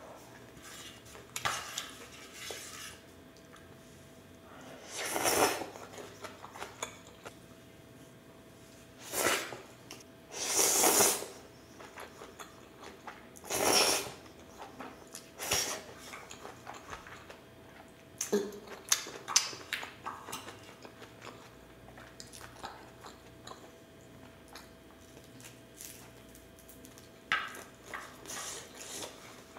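Noodles slurped in several short, loud sucks, between quieter chewing and small clicks of chopsticks against a stainless steel bowl.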